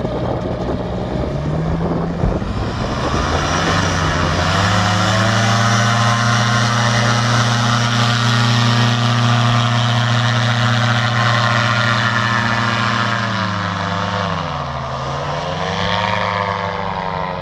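Powered parachute's engine and pusher propeller revving up from a low run to full throttle for the takeoff run, then holding a steady high drone. About two-thirds of the way through the pitch dips and climbs again as the craft lifts off.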